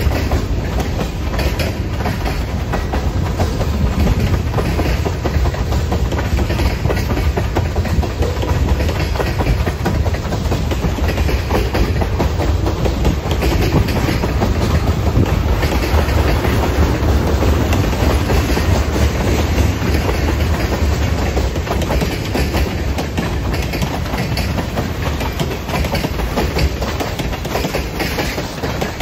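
Freight cars of a passing train, mostly tank cars and hoppers, rolling by: a steady rumble of steel wheels on rail with quick clicks as the wheels cross the rail joints.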